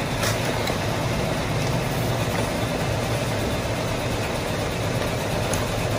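Steady low background hum, with two faint clicks near the start and near the end. No shots are heard: the electric airsoft rifle is on safe.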